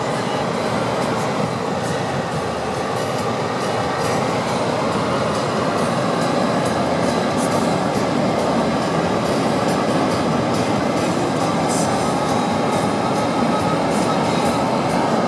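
Steady road and tyre noise with engine hum inside a moving car's cabin.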